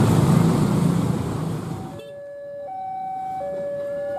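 Motorcycle and car traffic running over a level crossing, fading out. About two seconds in, a railway level-crossing warning alarm takes over: an electronic alarm alternating between two tones, a low one and a higher one, each held for about three-quarters of a second.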